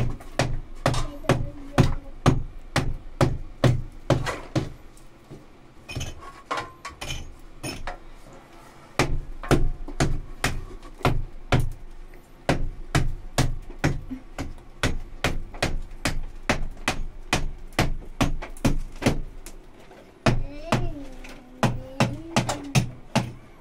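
Hammer knocking at the edge of a window opening in a mud-plastered wall, a steady run of sharp blows about two to three a second. The blows ease off for a few seconds about a quarter of the way in, then carry on.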